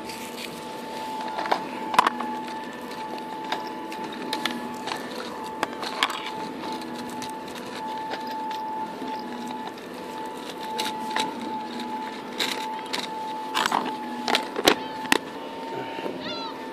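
Sharp clicks and knocks of a fish-measuring tape and gear being handled, over a steady mechanical hum throughout; the loudest knocks come about two seconds in and again near the end.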